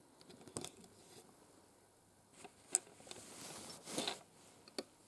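A near-quiet room with a few faint, sharp clicks and a soft hiss a little past the middle.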